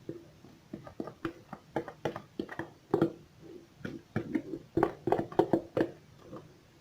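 Irregular knocks and scrapes of a utensil against a bowl and baking tray as thick basbousa batter is scooped into the tray, with a short ringing to each knock; the knocks come thickest near the end, then stop.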